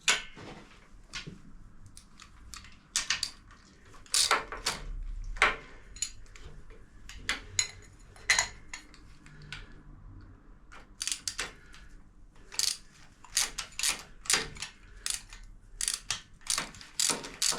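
Spanners and bolts clinking as the engine-mount nuts and bolts of a 1942 Harley-Davidson WLA are undone: irregular sharp metallic clicks, with quicker runs of clicks about eleven seconds in and near the end.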